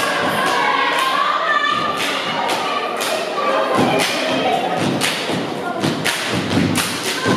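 A sorority step team stomping and clapping in an irregular rhythm of sharp thuds, with voices chanting over the beats.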